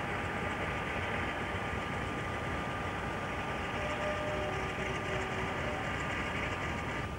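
Steady mechanical drone with a thin, constant high whine running through it: diesel locomotive engines idling in a depot.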